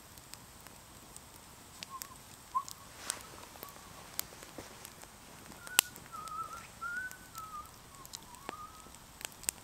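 Wood campfire crackling with sharp scattered pops, the loudest a little over halfway through. A faint, wavering whistle comes and goes from about two seconds in until near the end.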